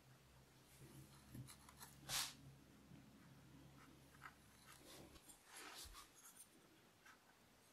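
Faint scratching and rubbing as a brush, fingers and a pointed wooden tool work the joined corner of a leather-hard clay slab plate, with one brief louder swish about two seconds in.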